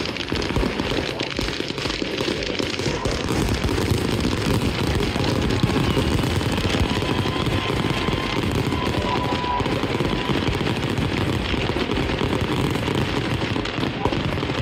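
Fireworks exploding in a dense, continuous barrage of rapid bangs and crackles, with a thin whistling tone partway through.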